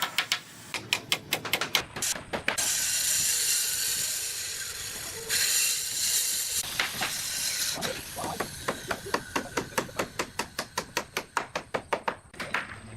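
Woodworking tool work: rapid, evenly spaced sharp taps at about five a second, broken a couple of seconds in by a steady hiss lasting about four seconds, after which the taps resume.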